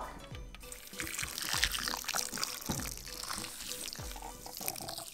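Water poured from a drinking glass into a glass bowl of instant snow powder, a steady splashing trickle as the powder soaks it up and swells.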